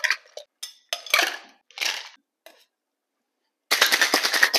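Ice cubes clattering into a metal cocktail shaker tin in a few short pours. After a brief gap, about three-quarters of the way in, a rapid, dense rattle of ice as the shaker is shaken.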